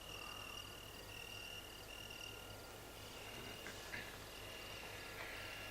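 Crickets chirping in a steady run of short trills, faint, over a low steady hum.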